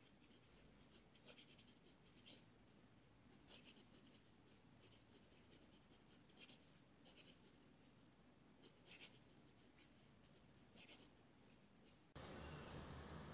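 Near silence, with faint, short, scattered scratchy strokes of a pen writing on paper.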